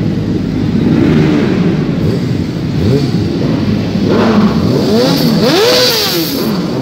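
Suzuki GSX-R600's inline-four engine revved while the bike stands still: it runs steadily, then gets several throttle blips whose pitch rises and falls, mostly in the second half.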